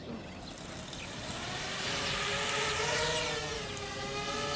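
Parrot Bebop quadcopter's propellers spinning up, a whir that grows louder from about a second in, wavers in pitch, then settles into a steady multi-toned hum as the drone hovers.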